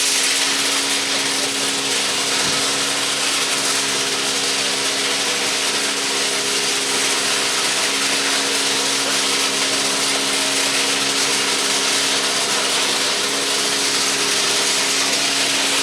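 Steady machinery noise: a constant hum with a strong hiss over it, running without a break.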